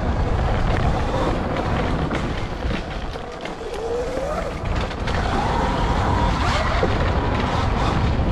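A dirt bike being ridden, with wind buffeting the microphone and a motor pitch gliding up and down, easing off briefly about midway.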